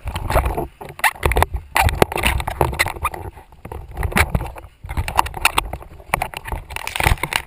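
Rapid, irregular knocks and thumps over a low rumble, the sound of a camera being jostled and bumped about on a fishing boat's deck; it stops abruptly.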